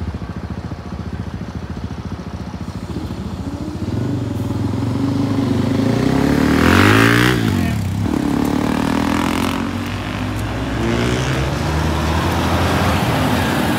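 Diesel tipper lorry pulling away over the level crossing and passing close by, its engine getting louder until it goes past about seven seconds in, followed by more road traffic.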